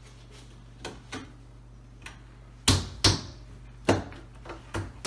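Irregular knocks and clicks from handling the steel legs of an upside-down foosball table frame during assembly, with two sharp, loud knocks close together just past halfway.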